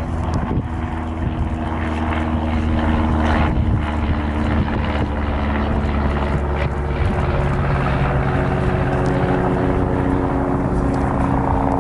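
Steady low rumble of a lava fountain jetting from a volcanic crater, with a droning hum underneath, growing slightly louder over the first few seconds.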